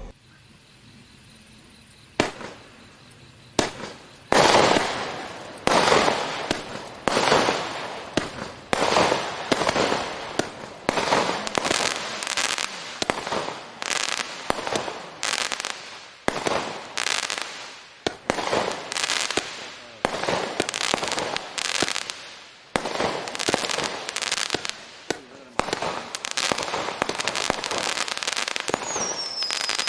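Permon Klasek firework going off in a long run of shots, about one a second after a first couple of bangs a few seconds in, each a sharp report trailing off in crackle. A falling whistle sounds near the end.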